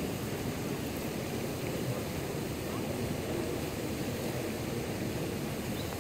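Large outdoor fountain's jets splashing into the basin: a steady rush of falling water.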